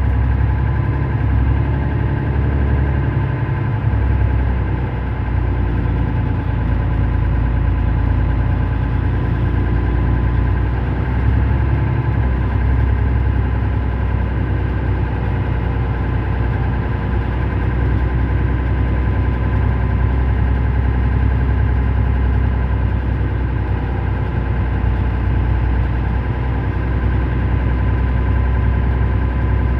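Mercedes-Benz Citaro O530 city bus idling at standstill: a steady low engine rumble that keeps on without change of pace.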